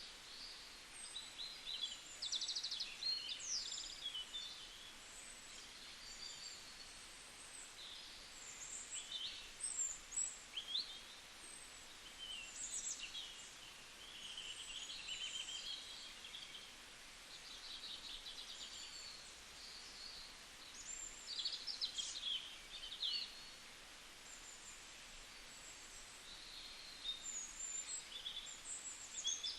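Several songbirds chirping and singing at once, a busy mix of short high calls and trills coming and going over a steady faint hiss.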